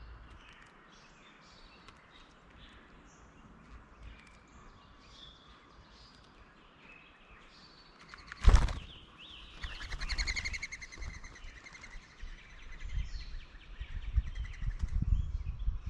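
Birds making short chips and calls, with one sharp loud knock about eight and a half seconds in. A rapid rattling call follows, and low thumps come near the end.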